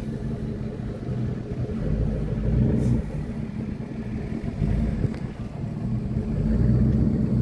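Jeep Grand Cherokee engine pulling the SUV slowly over off-road ground: a low, steady rumble that swells under throttle about two seconds in and again near the end.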